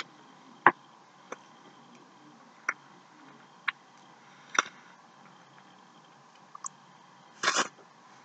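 A person eating close to the microphone: an uneven scatter of sharp clicks and smacks, with a short noisy burst near the end.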